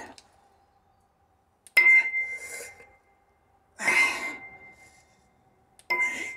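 Overhead dumbbell presses: three hard exhales about two seconds apart, one per rep, each starting with a clink of the metal dumbbells meeting overhead that rings on briefly.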